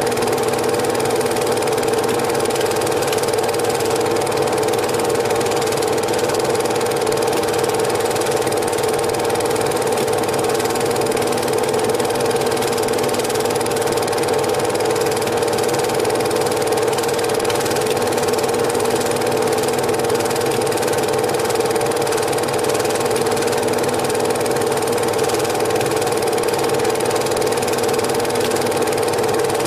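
Cine film projector running with a steady mechanical whirr and hum.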